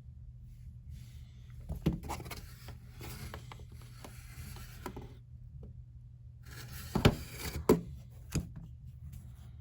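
Small metal tools and rifle bolt-carrier parts handled on a workbench during disassembly: clicks and rubbing, then three sharp knocks near the end, under a second apart.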